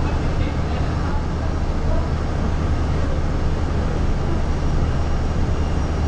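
Steady low engine drone and road noise heard from inside a vehicle moving slowly across an airport apron.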